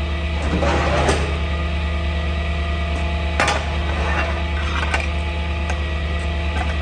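Metal clanks and scrapes of a tow truck's steel wheel-lift arm being set against a car's front tyre, with one sharp knock about three and a half seconds in, over the steady hum of the idling truck.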